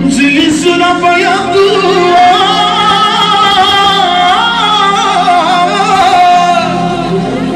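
Live manele music: a singer draws out a long, wavering, heavily ornamented melodic line over the band's accompaniment.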